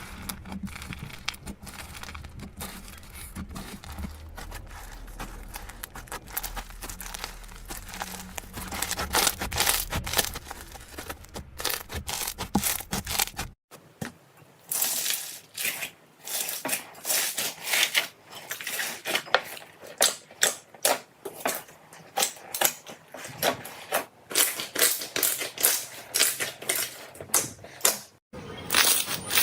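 Slime being squeezed and pressed, making dense crackling and clicking in quick runs with short gaps. The sound breaks off sharply about halfway through and again near the end. A low hum lies under the first half.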